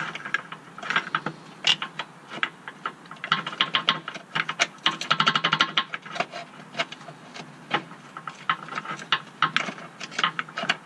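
Rapid metallic clicking in short bursts as a subframe bushing bolt is worked into its mount; the bolt feels cross-threaded.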